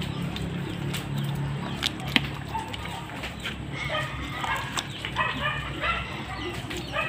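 A dog yipping and barking over and over from about four seconds in, short high calls several a second.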